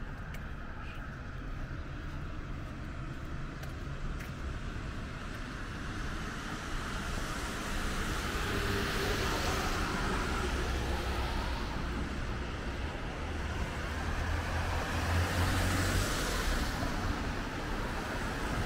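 Road traffic on wet pavement: cars pass with a hiss of tyres on the wet road over a low rumble, swelling and fading twice, about halfway through and again near the end.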